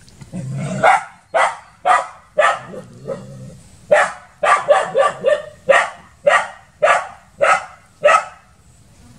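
Dog barking repeatedly at a monitor lizard, short sharp barks about two a second that stop near the end.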